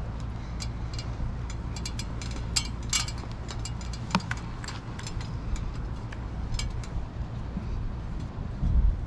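A microfiber towel wiping over an RV's painted front cap, with scattered light clicks and ticks over a steady low rumble. There is a low thump near the end.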